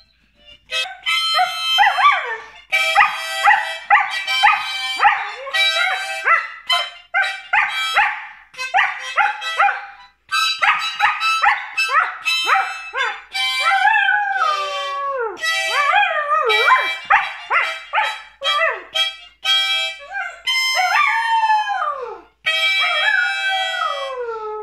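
A nine-month-old Border Collie howling along to music. Its howls slide downward in pitch, most clearly in the second half, against short notes held at steady pitches.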